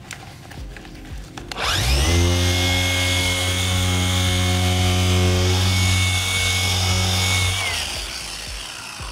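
Rupes mini polisher spinning up about a second and a half in, running steadily with a hum and a high whine while polishing out sanding marks on car paint, then winding down near the end.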